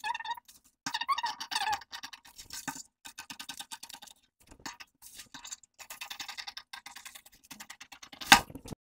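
Scissors cutting through pattern paper in short repeated snips, with the paper rustling. A single sharp knock near the end, then the sound cuts off abruptly.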